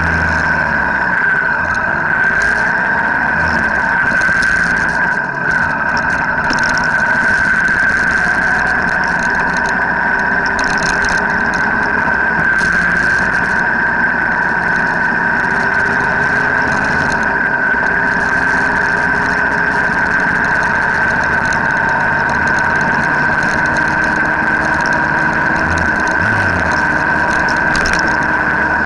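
Motorcycle engine running at a steady cruising speed, heard from a camera mounted on the moving bike, with wind and road noise and a steady high-pitched whine.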